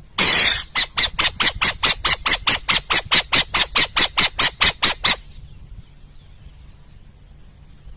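Owl calling: one harsh screech, then a fast run of about twenty short, harsh calls at roughly four to five a second that stops abruptly about five seconds in.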